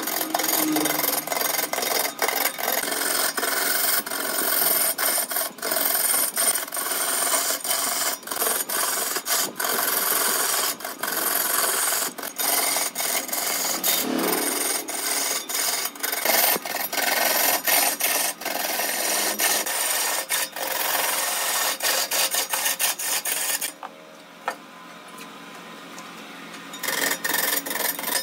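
Turning tool cutting into a large log spinning on a wood lathe: a loud, continuous rough scraping, broken by rapid irregular ticks as the edge meets the uneven wood. About three seconds before the end the cutting stops for roughly three seconds, leaving a much quieter dull sound, then the scraping starts again.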